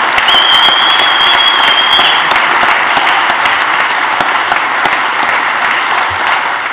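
Congregation applauding, the clapping slowly dying down. A steady high whistle is held for about two seconds near the start.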